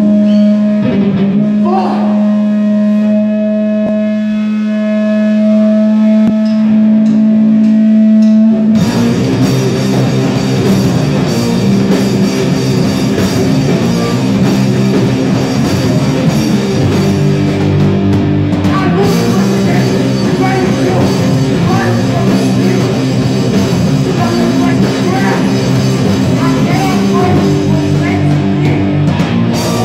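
Live hardcore punk band, loud. A steady held droning tone for the first several seconds, then distorted electric guitars and a drum kit crash in together about nine seconds in and play on at full volume.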